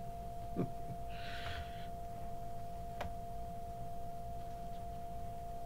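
A steady low electrical hum, with a short breathy hiss about a second in and a single light tick near the middle.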